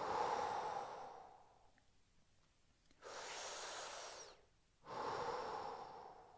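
A man taking slow, deep, audible breaths while holding a weighted side neck stretch: three long breaths, each about a second and a half, with short pauses between them. This is deliberate paced breathing, counted through the held stretch.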